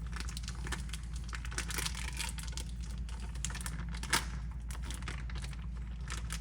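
Food packaging being opened by hand: light crinkling and tearing with many small scattered clicks, and one sharper click about four seconds in.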